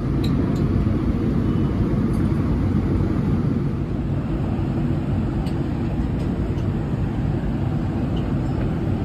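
Steady low rumble of an airliner cabin in flight, the engine and airflow noise even throughout, with a few faint clicks.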